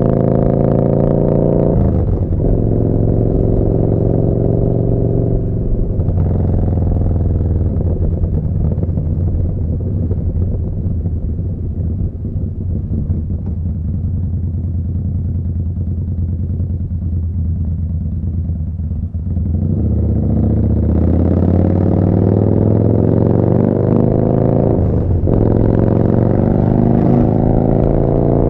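Yamaha Bolt's air-cooled V-twin through a Vance & Hines slip-on exhaust, ridden on the road. The note breaks briefly twice in the first six seconds as it changes gear, then runs at a lower, steadier note for a long stretch. From about two-thirds of the way through it climbs again under acceleration, with another gear change near the end.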